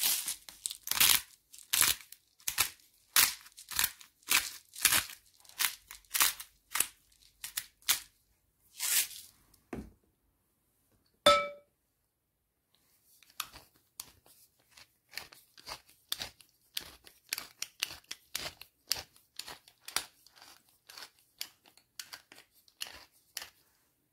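Salt and pepper grinders being twisted, giving a series of crunchy grinding strokes about one and a half a second. After a single short ringing clink about halfway through, a faster, fainter run of grinding strokes follows.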